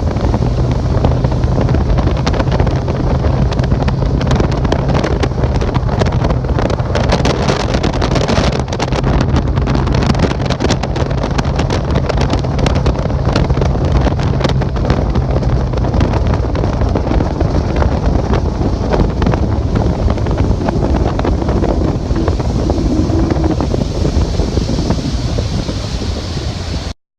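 Boat motor running steadily at speed, with heavy wind buffeting the microphone. A steady low hum fades out about two-thirds of the way through, and all sound cuts off suddenly near the end.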